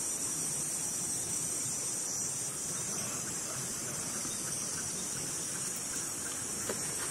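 Steady high-pitched chorus of insects, with a low background rumble beneath it and a faint click near the end.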